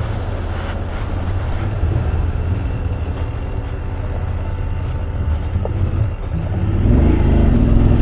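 BMW F 850 GS Adventure's parallel-twin engine running as the motorcycle rides a rough off-road track, a steady low rumble that gets louder about seven seconds in.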